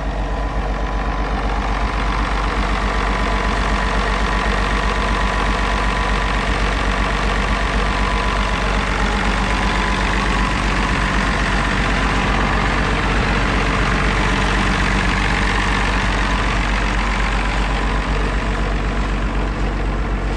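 International Harvester Farmall 560 diesel tractor's six-cylinder engine running steadily.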